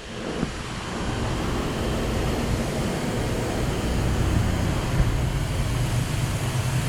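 A machine running steadily with a low hum under a broad hiss, building up over about the first second.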